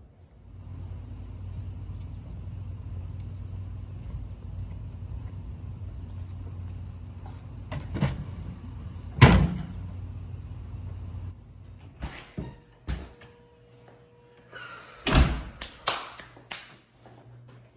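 A steady low rumble with a sharp bang about nine seconds in, the loudest sound, as the plastic lid of a wheeled garbage cart is dropped shut over a trash bag. Then several knocks and bangs near the end, including a door being shut.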